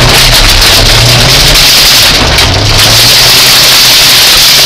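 Rally car at speed on a gravel stage, heard from inside the cabin: a loud, steady hiss of gravel spraying against the underbody and wheel arches, with the engine's drone underneath.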